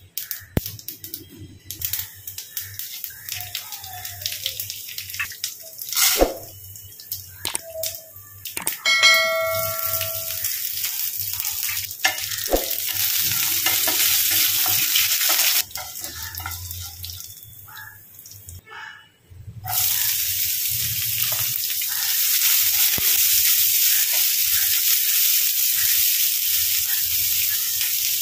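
Hot oil sizzling and crackling in a nonstick frying pan as a tempering of urad dal, cumin, dried red chillies and curry leaves fries while being stirred, with a short squeak about a third of the way in. About two-thirds of the way in the sizzle becomes louder and steady as chopped onions fry.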